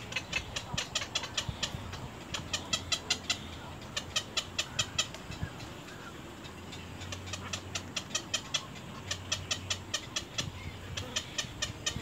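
Egret nestlings giving fast ticking calls: bursts about a second long of short sharp notes at roughly eight a second, repeated with short pauses. A steady low hum lies underneath.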